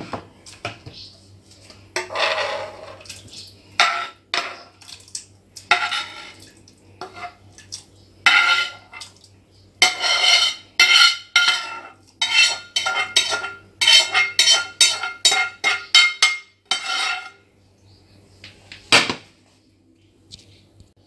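A utensil scraping and clinking against a frying pan as cooked tomato sauce is scraped out into a plastic tub, with a fast run of scrapes and taps in the middle and a single knock near the end.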